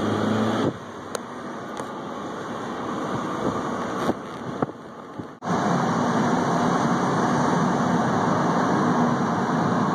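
Car running, heard from inside the cabin: steady engine and road noise with a low hum, cutting in suddenly about five seconds in. Before that, a quieter stretch of outdoor noise with a few clicks.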